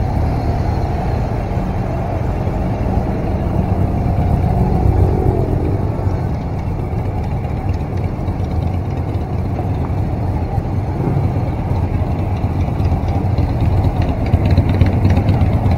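Several motorcycle engines running at a crawl in dense, slow-moving motorcycle traffic, the rider's own BMW R 1200 RT boxer twin among them: a steady low rumble, a little louder near the end.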